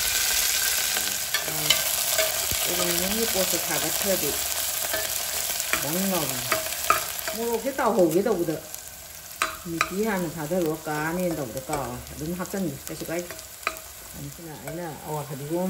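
Chopped greens and red chillies sizzling as they fry in an aluminium pot, with a metal spoon stirring and clicking against the pot; the sizzle is loudest in the first half and thins after that. A wavering, voice-like pitched sound runs under it from about three seconds in.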